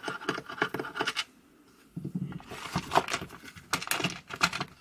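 Screwdriver backing screws out of a Ryobi inflator's plastic housing: irregular scratching and clicking of metal on plastic, with a short lull partway through. Near the end comes plastic clicking and scraping as the case is handled.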